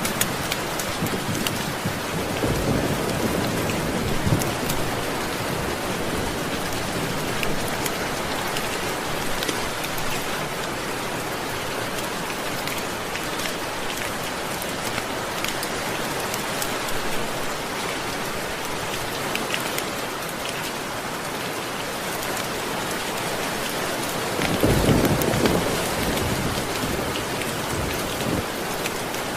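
Steady heavy rain with low rolls of thunder, a faint one a few seconds in and a louder one near the end.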